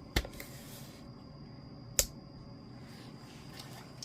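Two sharp clicks about two seconds apart, the second brighter and snappier, as motorcycle wiring harness connectors are handled and pulled apart.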